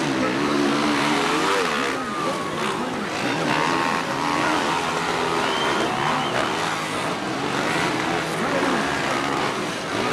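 Several motocross bike engines revving up and down at once, their pitch rising and falling over and over as the riders work around the track.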